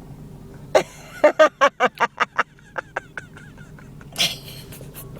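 A person making a quick run of short, sharp goofy vocal noises, about eight in a second and a half. A couple more follow, then a breathy huff near the end.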